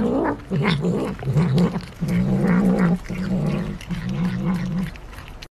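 A tabby cat making a string of short, low, wavering growling mumbles while it bites and chews a cucumber.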